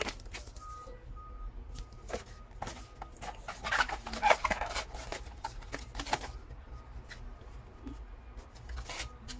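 Cardboard gift box and paper tea sachets being handled and unfolded: rustling and crinkling with scattered clicks and taps, and a louder burst of rustling about four seconds in.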